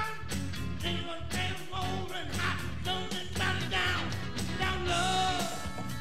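Rock music: a band track with a steady drum beat and a lead melody that bends up and down in pitch, performed into a microphone.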